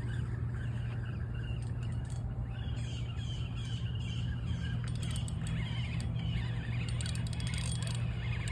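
Spinning reel being cranked to bring in a hooked fish, its gears and handle giving off runs of quick clicks, thickest about five seconds in and again near the end. A steady low hum runs underneath.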